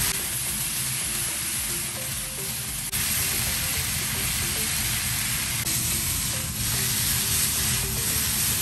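Stir-fried chow mein noodles and vegetables sizzling in a frying pan over a gas flame as they are tossed and stirred with a fork, a steady hiss throughout.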